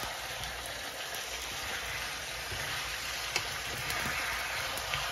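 Chicken pieces and whole tomatoes cooking in a pan, the water released by the chicken sizzling and bubbling off in a steady hiss. One sharp click comes about three and a half seconds in.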